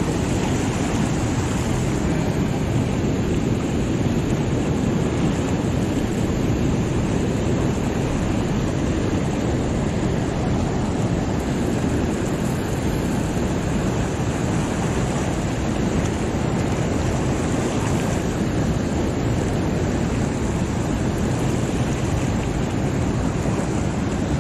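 Steady rushing of fast whitewater pouring through a lake spillway, a constant low, even roar with no breaks.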